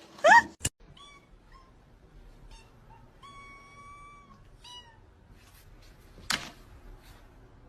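Cat meowing: one loud rising meow at the start, then a string of fainter meows, one of them drawn out for about a second. A short, loud, noisy sound comes about six seconds in.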